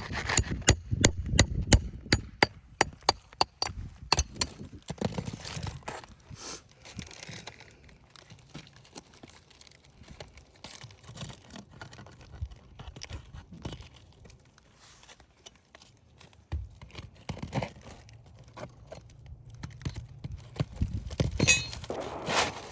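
Hand work on brittle roof shingles: a quick run of sharp clicks and taps, then scattered scrapes and knocks, as a shingle is pried loose.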